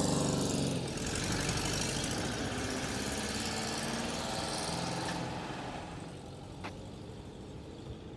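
Volkswagen Westfalia camper van engine running as the van pulls away, fading after about five seconds as it drives off down the street. A single short click near the end.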